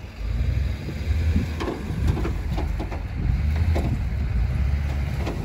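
Rollback tow truck's engine running under load, a deep rumble that comes up suddenly at the start and holds steady, with scattered knocks and creaks from the shed load on the bed.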